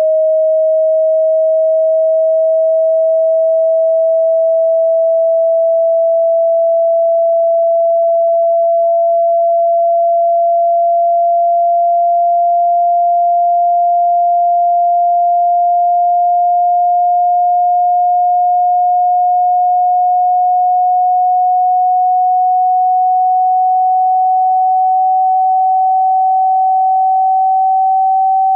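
A single pure sine tone, generated for speaker water ejection, rising slowly and steadily in pitch from about 630 Hz to about 760 Hz. It is a frequency sweep played at full volume to shake water out of a phone's loudspeaker.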